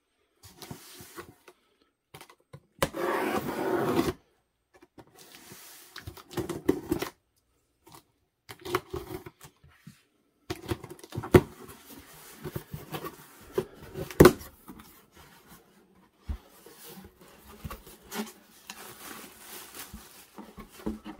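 A cardboard shipping box being opened by hand: packing tape slit with a folding knife, the cardboard flaps pulled open, and the contents and plastic air-pillow packing handled. It comes as a string of scrapes and rustles, with a louder stretch of about a second near the start and a few sharp clicks later on.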